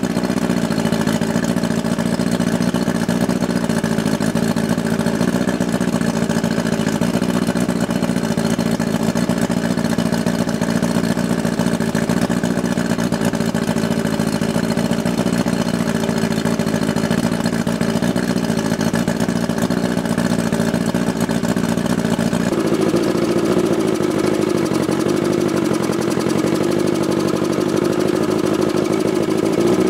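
1983 Mercury Classic 50 two-stroke outboard running steadily at idle. Its tone shifts about 22 seconds in, and near the end it starts to rev up.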